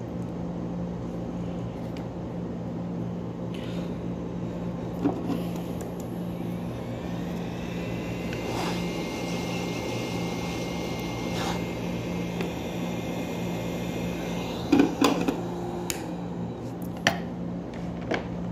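Hot air rework station blowing steadily over a circuit board while a shorted component is heated off, with a few sharp clicks of metal tweezers, the loudest about fifteen seconds in. A faint high tone holds for several seconds in the middle.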